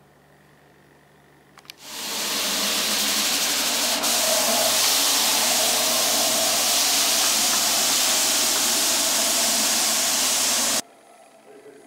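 GCC cutting plotter running with paint protection film loaded: a steady, loud hiss with a faint hum underneath. It starts about two seconds in after a couple of small clicks and stops suddenly near the end.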